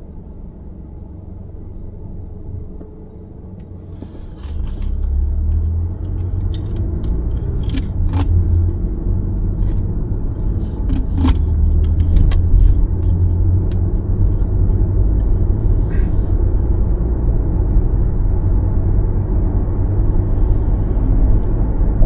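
Car driving on a road: a steady low rumble of road and tyre noise that grows louder about four and a half seconds in, with a few short clicks.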